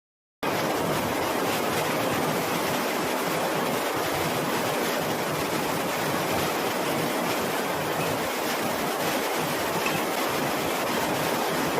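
Heavy rain falling, a steady even hiss with no break, cutting in abruptly about half a second in.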